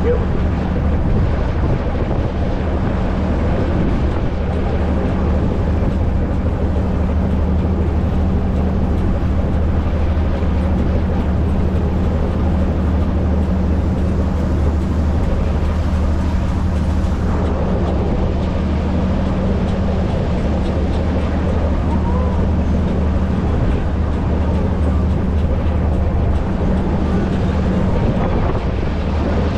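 Tour boat's engine running steadily under way, a low drone heard on board, over a constant rush of wind and water.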